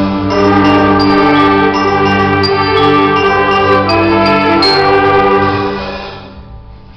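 Live ensemble music with bell-like struck notes ringing over held lower notes, the closing chord dying away near the end.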